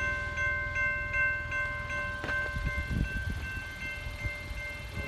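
CSX intermodal freight train rumbling past while a bell rings at an even beat of about two and a half strikes a second, typical of a railroad grade-crossing bell.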